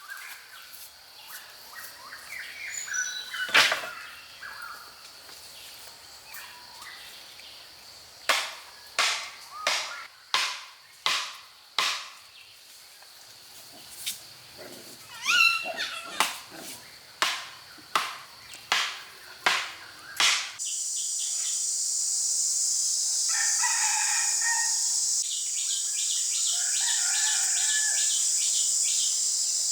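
Birds chirping over a series of sharp knocks, about one every 0.7 seconds, like a tool striking. Then, after an abrupt change, a steady high-pitched insect drone with birds calling.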